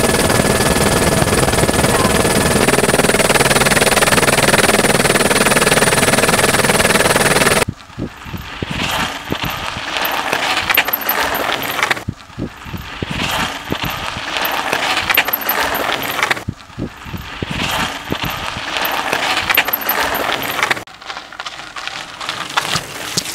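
A loud steady rushing roar with a few steady whistling tones, cutting off about eight seconds in. Then mountain bikes rolling over gravel and road: tyres crunching, chains and freewheels clicking and rattling, in stretches that cut every four seconds or so.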